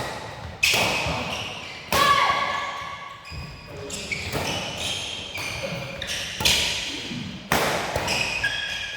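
Badminton rally: sharp racket hits on the shuttlecock roughly every second, each with a short echo, mixed with short squeaks of shoes on the court.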